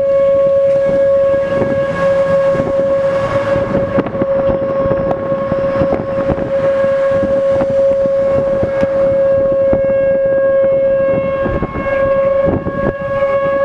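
Outdoor tornado warning siren holding one steady tone, with gusty wind buffeting the microphone.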